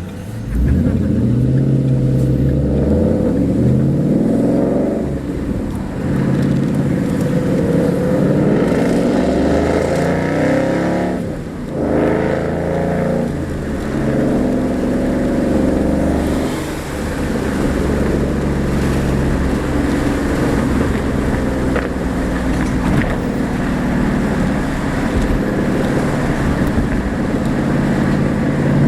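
2009 Shelby Mustang's V8 and exhaust accelerating hard, the engine pitch climbing and dropping back at each gear change several times, then running more steadily at speed.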